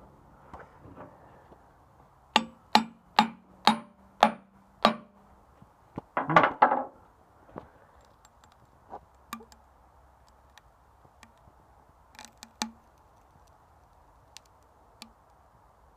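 A homemade knife hammered into a wooden plank: six sharp blows about two a second, each with a short metallic ring. About six seconds in comes a louder, denser burst of knocks, followed by a few scattered light clicks.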